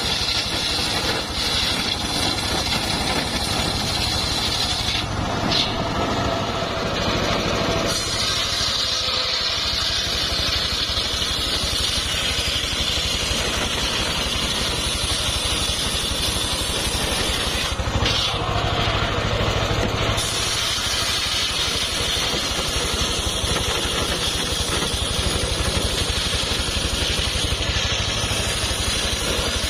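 Engine-driven homemade circular saw bench running continuously while sawing timber. Its tone changes briefly about 5 and 18 seconds in.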